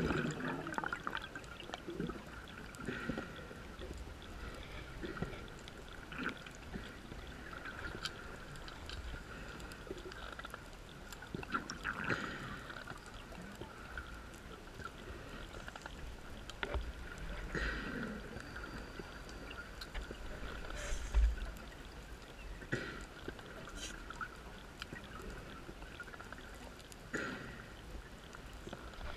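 Open-circuit scuba breathing heard underwater: gurgling bursts of exhaled bubbles from a regulator every few seconds over a low steady hiss.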